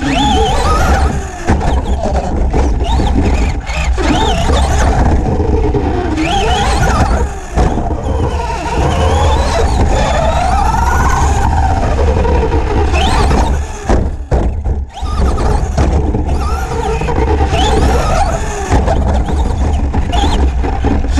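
Traxxas Slash 2WD RC truck's electric motor and drivetrain whining, the pitch rising and falling as the truck speeds up and slows around the track, over a steady rumble of the chassis and tires on the dirt. A few brief dips in loudness break it up.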